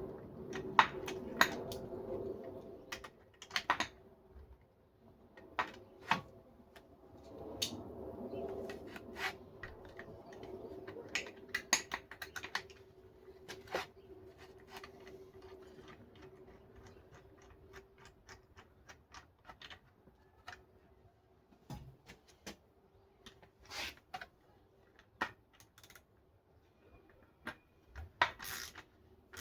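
Irregular clicks and light knocks of hand tools and metal hardware as a bolt is fitted through the brake light ring and wheel lug hole, some in quick little clusters, over a faint steady hum.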